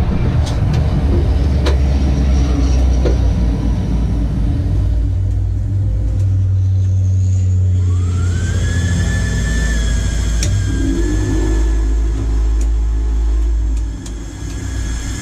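Race truck's diesel engine running at a standstill, heard inside the cab as a heavy low rumble, with a few sharp clicks. About eight seconds in, a whine rises and then holds steady.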